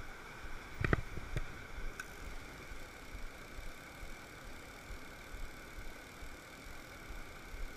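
A mountain stream rushing over rocks, a steady water noise, with three short clicks between about one and two seconds in, the first the loudest.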